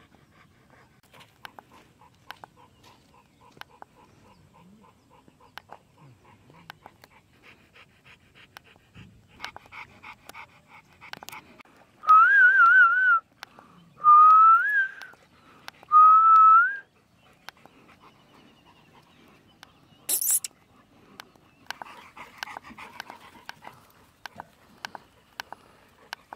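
Cane Corso panting in short, quick puffs. About halfway through come three loud, high, wavering whistle-like tones, each about a second long.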